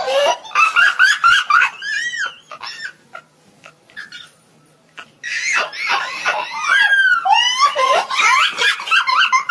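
People laughing hard in high-pitched, squealing fits, with a lull of a couple of seconds near the middle.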